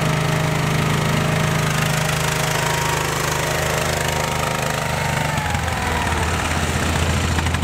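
Case 444 garden tractor engine running steadily. About five seconds in its note shifts and a whine falls in pitch as the tractor moves off.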